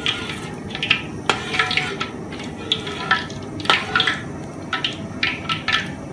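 Stainless steel skimmer ladle clinking and scraping against a metal wok as it is stirred through oil that is still heating for deep-frying, in irregular short strokes with two sharper knocks.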